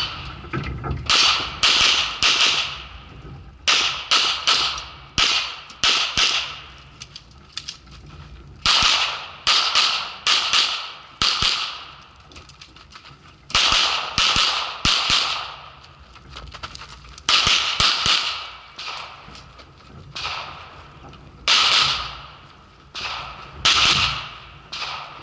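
Handgun shots fired in quick pairs and short strings of up to four, with brief pauses between groups, each shot sharp and echoing: a competitor shooting through an IPSC stage.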